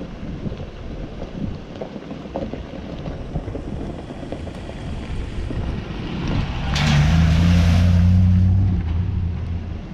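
Range Rover Classic V8 driving through a shallow concrete ford close by, engine running and its tyres splashing water, loudest about seven to eight seconds in after a quieter low rumble as it approaches.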